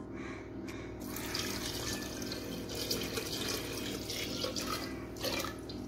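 Thin second-press coconut milk poured in a steady stream from a bowl into a steel pressure-cooker pot of cooked semolina, splashing onto the grains and then the rising liquid. The pour starts about a second in and tails off near the end.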